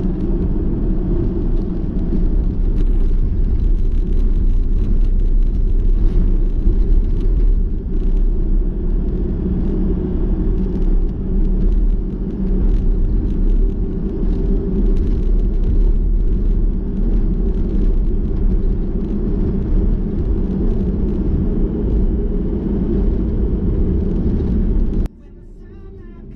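A car driving on a gravel road, heard from inside the cabin: a steady, loud low rumble of tyres and engine. It cuts off abruptly about a second before the end, and faint music follows.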